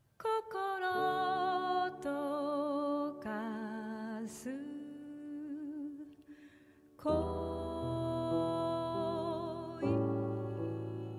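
Slow, gentle background music: a wavering melody with vibrato over sustained low notes. It starts just after the opening, dips briefly about six seconds in, then resumes.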